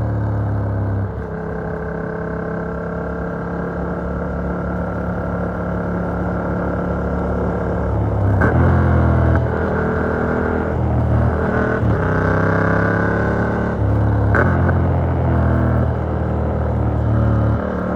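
Yamaha MT-07's two-cylinder engine through an Arrow Works exhaust with a dB killer, heard from a phone in the rider's backpack. It pulls with slowly climbing revs for most of the first half, then the revs jump and fall sharply a few times in the second half.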